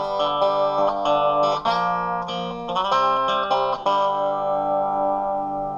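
Electric guitar, a Strat-style Ibanez on its bridge pickup, strummed in a series of chords through a Marshall Lead 12 amp set to a fairly clean tone with the treble turned all the way up. The chords change about once a second, and the last one is left ringing near the end.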